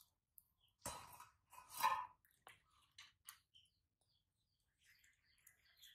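Spoon, bowl and metal pot being handled while porridge is served: two short scrapes about one and two seconds in, then a few light clicks and clinks.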